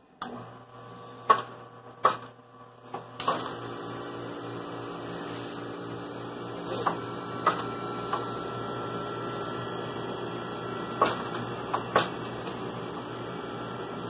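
Follett 50CI ice machine restarting after a reset: a few clicks, then about three seconds in its auger gear motor starts and runs with a steady hum, with a few more clicks later. The gear motor draws slightly high current and keeps tripping on overtorque, which the technician puts down to scale in the evaporator or worn auger bearings.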